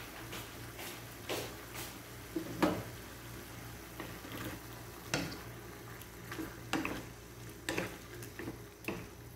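Wooden spatula stirring squid and vegetables in a nonstick wok, with scattered taps and clicks against the pan over faint sizzling and a low steady hum.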